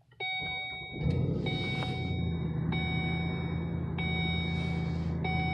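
Volvo S80's 4.4-litre Yamaha V8 cold-started: the starter cranks briefly and the engine catches about a second in, settling into a steady high cold idle, heard from inside the closed cabin. A dashboard warning chime repeats about every 1.3 seconds over the idle.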